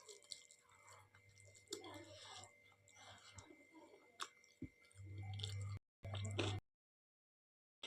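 Close-miked eating sounds of dal and rice being chewed: soft wet chewing with small lip smacks and clicks. A low hum comes and goes, and the sound cuts out completely for about a second near the end.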